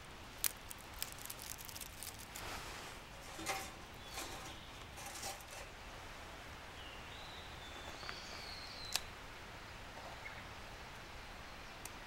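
Light clicks, taps and short rustles from hands handling a small metal camp stove and twigs on a forest floor, loudest in the first half. A short, thin, high bird call sounds about seven seconds in.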